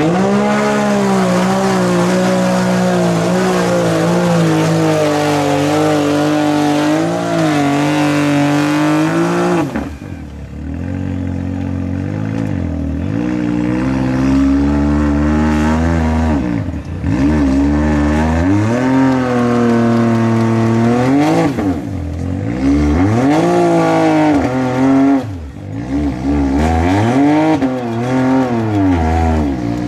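Can-Am Maverick X3 side-by-side's turbocharged three-cylinder engine revving hard as it drives into deep mud. The revs climb and are held high for about ten seconds, then drop and surge up and down in four more pulls as the machine churns through the hole.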